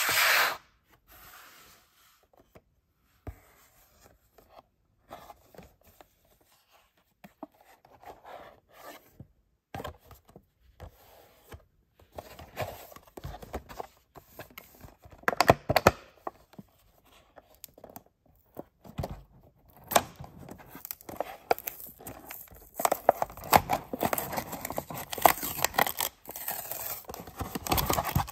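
Hands handling a Hot Wheels car's blister pack: plastic and card crinkling and tearing as the clear plastic blister is pulled off its cardboard backing, sparse small clicks at first and denser, louder crackling in the second half. A brief loud noise comes right at the very start.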